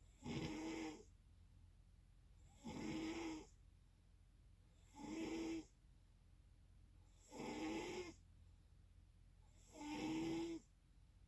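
Snoring: five snores about two and a half seconds apart, each lasting under a second with a steady low pitch and a rough rasp above it.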